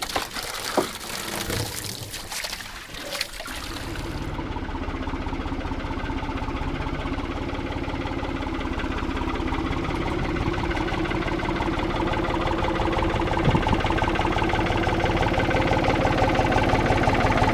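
A few seconds of splashing, pouring noise, then a tractor engine starts about three and a half seconds in and runs steadily, slowly growing louder.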